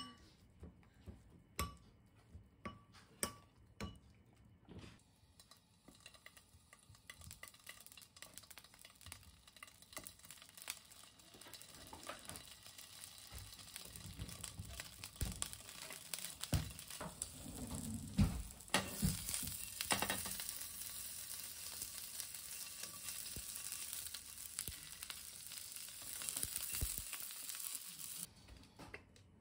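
A utensil clicks a few times against a glass bowl as greens are mixed, then small cocktail sausages sizzle in oil in a frying pan, the sizzle building and loudest in the last third, with a few knocks as they are moved about; the sizzle cuts off suddenly near the end.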